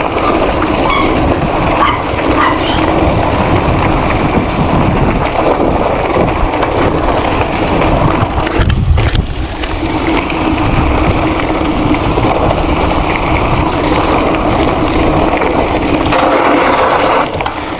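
Gios FRX mountain bike rolling fast down a loose gravel dirt road: tyres crunching over stones and the bike rattling over the bumps, with wind buffeting the microphone.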